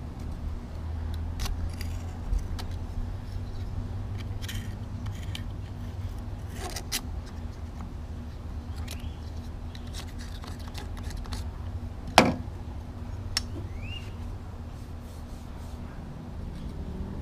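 Scattered small metallic clicks and scrapes of a steel pocket-tool tip picking around the bearing inside a Hustler Raptor mower-deck spindle housing, with one sharper click about twelve seconds in. A steady low hum runs underneath.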